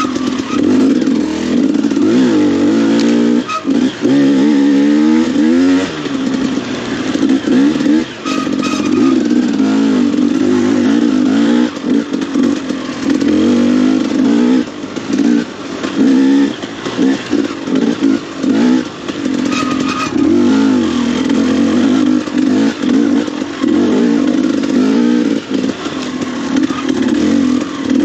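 KTM enduro motorcycle engine pulling along a dirt trail, the revs rising and falling with the throttle, with frequent short drops in loudness as the throttle is rolled off and back on.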